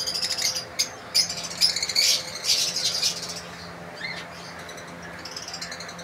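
Lovebirds chattering in rapid, high-pitched chirps, busiest in the first three seconds and thinning out in the middle, over a faint steady low hum.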